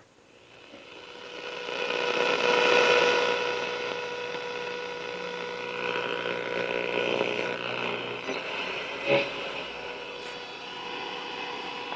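Westinghouse H126 tube radio warming up after being switched on: static fades in over a couple of seconds and settles into a steady hiss with faint whistling tones, as the tubes come up to temperature. A single sharp click about nine seconds in.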